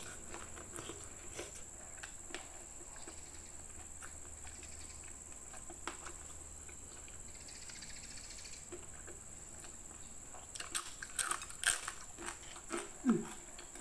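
Close-up eating sounds: quiet chewing, then a run of crisp crackling crunches near the end as a fried peanut cracker (rempeyek) is bitten and chewed.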